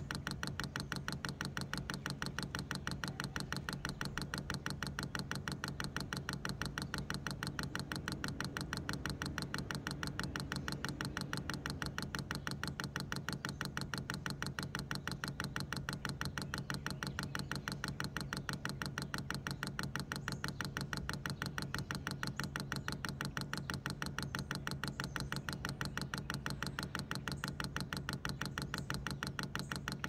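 Diesel heater fuel dosing pump ticking rapidly and evenly, several clicks a second, over a steady low hum: the pump running in priming mode, drawing diesel through the line to fill the filter.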